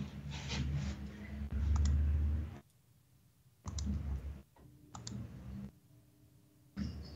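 Audio samples triggered from a pad sampler controller: several short sounds that each start and cut off abruptly, with gaps between them and sharp clicks at the starts and stops.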